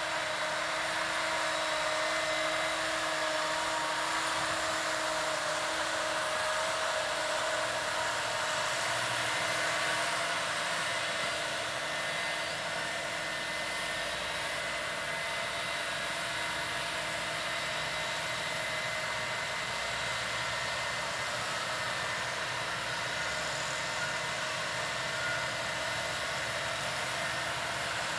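New Holland T7.290 tractor working under load while drilling with a Horsch Serto 12 SC seed drill: a steady rushing noise with faint, steady whining tones, a little louder in the first ten seconds as the rig passes close by.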